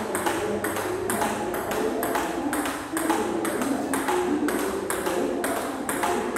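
Table tennis rally: the plastic ball clicking off the bats and the table in a quick, even rhythm, with one bat faced with pimpled rubber.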